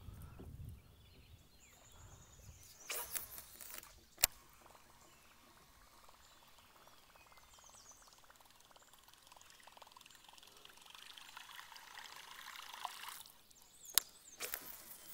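Fishing from a kayak on calm water: soft trickling and small splashes of water, a brief rushing burst about three seconds in and another near the end, and two sharp clicks of fishing tackle, one about four seconds in and one near the end.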